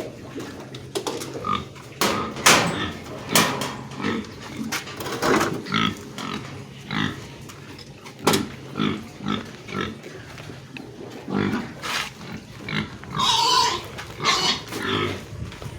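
Young pigs grunting at feeding time, a quick irregular run of short grunts with a longer, higher-pitched call about thirteen seconds in.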